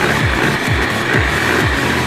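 Background music with a steady beat of low, falling kick-drum thumps, about two a second.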